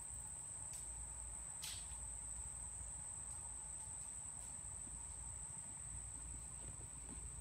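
Steady high-pitched insect chorus, an unbroken shrill trill, over a faint low rumble.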